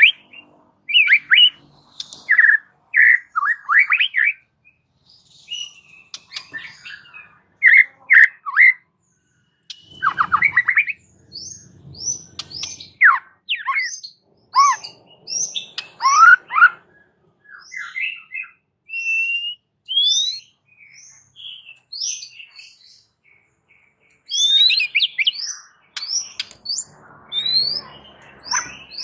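White-rumped shama (murai batu) singing in bursts of varied phrases with short pauses between. Dense runs of quick chattering notes give way in the second half to repeated short, clear rising whistles.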